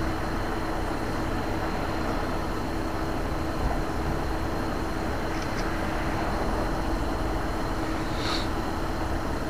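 Tow truck engine running steadily with a constant hum while its line is let down toward the water. A short high squeak comes near the end.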